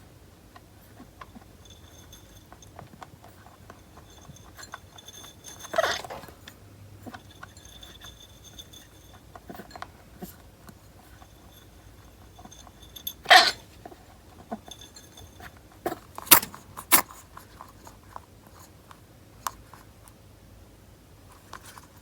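A pet rabbit sneezing: a few short, sharp, noisy sneezes several seconds apart, with small clicks and rustles in between.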